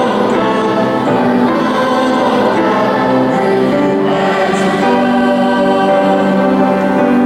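A choir singing in long held notes.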